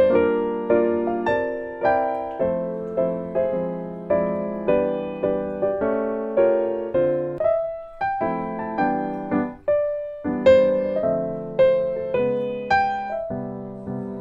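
Background piano music: gentle chords and melody struck at an easy pace, each note fading before the next.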